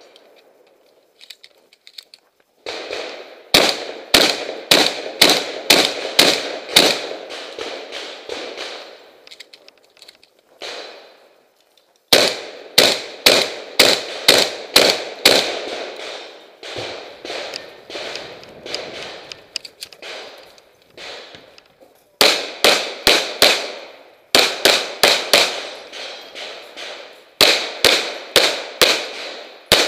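Close, loud gunshots fired in quick strings of about two to three shots a second, each shot ringing out briefly. There are five strings with pauses of a few seconds between them; the shooter's shotgun fires at least the string in the middle.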